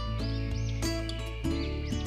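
Background music: an instrumental track with sustained notes over a steady bass, with short chirping high glides repeating through it.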